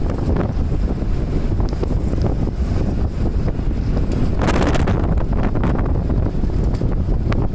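Heavy wind buffeting the microphone of a moving vehicle: a steady low rumble of wind and road noise, with a stronger gust about four and a half seconds in.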